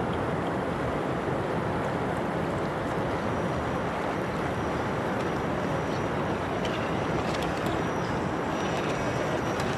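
Steady rush of a nearby river, with a faint high whine from the RC crawler's electric motor coming in about three seconds in, and a few light clicks of its tyres on rock near the end.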